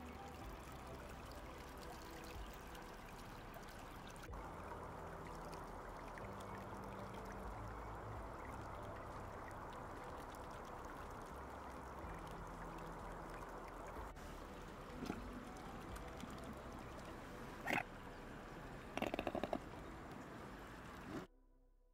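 Steady rush of a flowing stream, with short nasal calls from mute swans near the end: one brief call, then a rapid series of pulsed calls about a second later. The sound cuts off suddenly shortly before the end.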